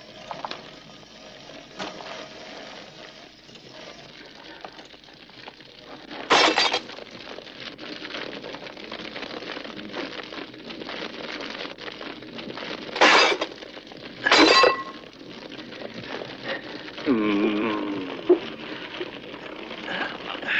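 Three sudden crashes of breaking glass: one about six seconds in, then two more a second and a half apart around thirteen to fourteen seconds. This is a car's cracked windshield being smashed out.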